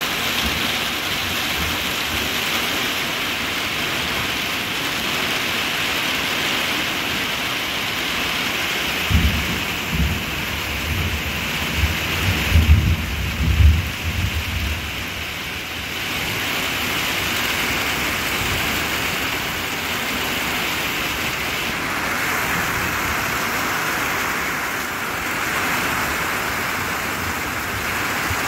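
Rain falling steadily in a thunderstorm, a dense continuous hiss. Thunder rumbles low several times in the middle.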